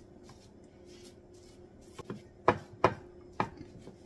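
Plastic spoon pressing and tapping dry stuffing mix down into a glass baking dish: about four sharp knocks in the second half.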